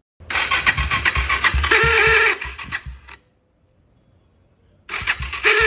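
Bajaj Pulsar 220 motorcycle's electric starter cranking the engine in two attempts, a fast rhythmic chugging overlaid partway into each by a high squealing whine. The noise comes from a defective starter motor.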